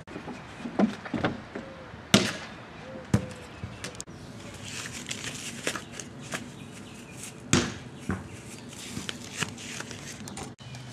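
A series of sharp thuds and knocks, a second or more apart and loudest about two, three and seven and a half seconds in, with voices talking faintly in between.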